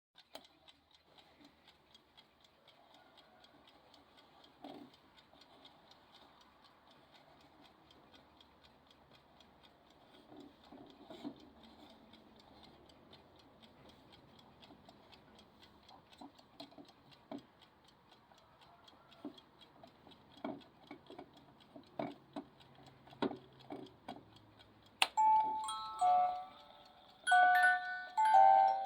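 German ERNES alarm clock ticking steadily, with a few louder knocks and clicks. About 25 seconds in, its alarm goes off, playing a chiming melody of bell-like notes.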